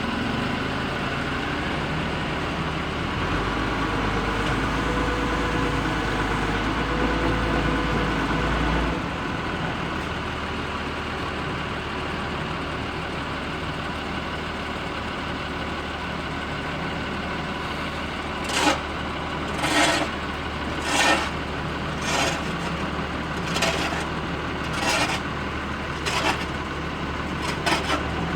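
A steady engine hum, with a deeper rumble for several seconds early on. From about two-thirds of the way in, a run of short, sharp strokes repeats roughly every second and a bit.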